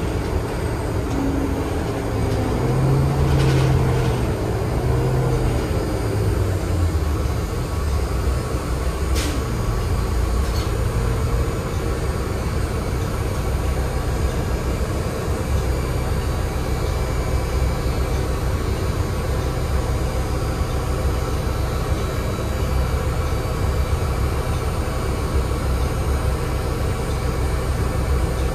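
Inside a 2016 NovaBus LFS CNG city bus under way: its Cummins ISL-G 8.9 L six-cylinder natural-gas engine and road noise run steadily. The engine note shifts in the first several seconds, then settles. A few sharp rattles or clicks come at about 3, 9 and 10 seconds in.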